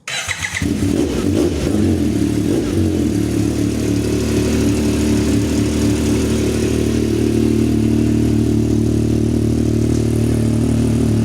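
Yamaha 1000's engine starting up, catching within about half a second and settling into a steady idle through a newly fitted aftermarket full exhaust (new header and muffler) running a tune made for that exhaust.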